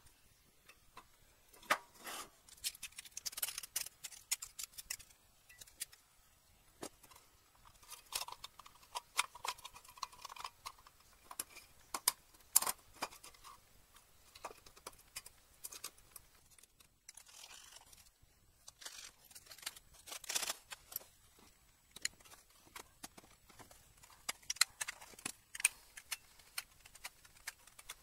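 Thin stainless steel plates being handled and fitted into the slots of a 3D-printed plastic housing: irregular metallic clicks, taps and short scrapes with brief pauses.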